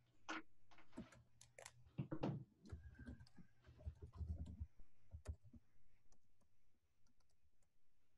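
Faint, irregular clicking of keys on a computer keyboard being typed on, in uneven runs of keystrokes.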